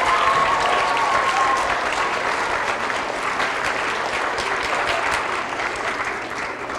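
Audience of schoolchildren clapping in a hall, dense and steady, then thinning and dying away near the end.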